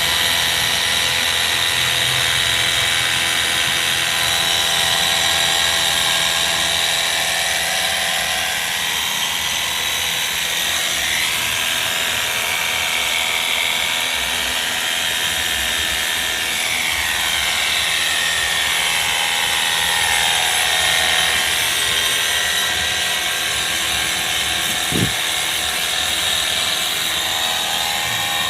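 Pressure washer running steadily while water is sprayed during AC servicing, its pitch shifting slowly in the middle; a short knock about 25 seconds in.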